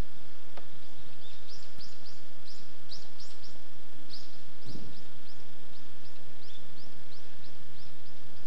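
A bird calling a long run of short, high, downward-slurred chirps, about three a second, over a steady hiss. A dull low thump sounds about halfway through.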